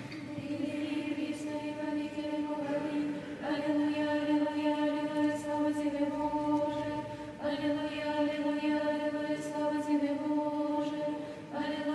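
Monastic choir singing Orthodox chant a cappella, holding a steady note, with new sung phrases beginning about every four seconds.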